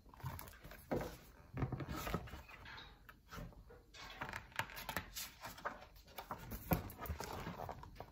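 A large hardcover picture book being handled and its page turned: irregular paper rustling with soft knocks and clicks throughout.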